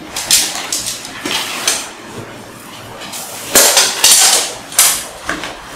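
Stiff synthetic tent fabric rustling and crinkling in several bursts as it is handled and a fiberglass frame rod is worked into its sleeve, the longest burst about three and a half seconds in, with a few light knocks.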